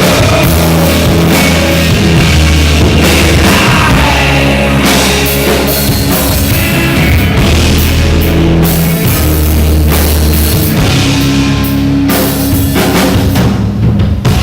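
Loud heavy rock music with a drum kit pounding under sustained low, heavy notes, cutting off sharply at the end.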